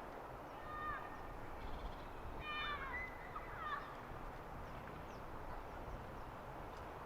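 A bird gives short, descending calls in two clusters, one about a second in and a quicker series about two and a half seconds in, over steady outdoor background noise.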